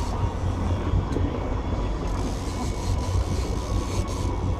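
Fishing boat's engine running at trolling speed, a steady low rumble.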